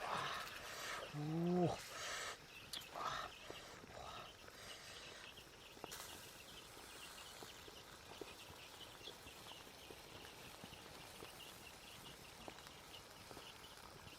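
An animal's short low pitched call about one and a half seconds in, among a few other brief sounds, then a faint steady outdoor background.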